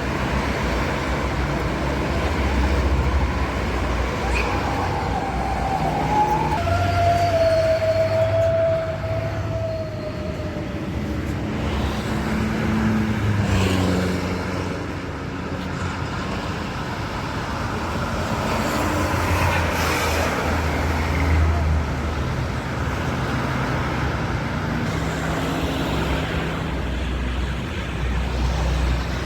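Traffic on a toll road, with the engine and tyre noise of large vehicles such as buses rising and falling as they go past. About a quarter of the way in, a drawn-out tone slides down in pitch as a vehicle passes.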